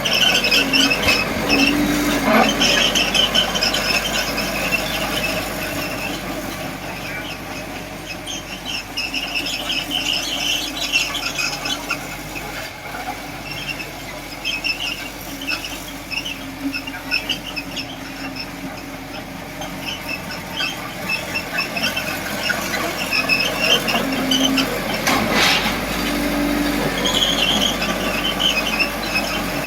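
Komatsu D20P small crawler bulldozer moving and pushing soil, its steel tracks squealing again and again over the steady running of its diesel engine.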